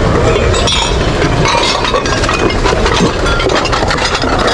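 Ceramic plates and glassware clinking and knocking against one another as they are picked up and shifted in a heap of dishes, with many short chinks throughout.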